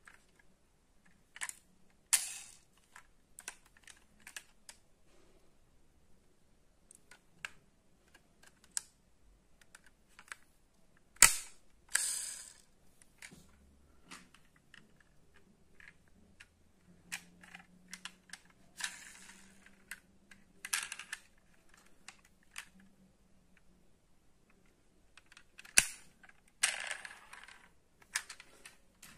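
Die-cast metal toy cars being handled and set down on wooden boards: scattered clicks and clacks, and several short rasping runs as cars are pushed across the wood. The loudest is a single sharp knock about eleven seconds in.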